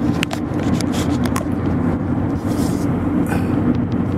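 Car engine and road noise heard from inside the cabin while driving, a steady low rumble, with a few light clicks in the first second and a half.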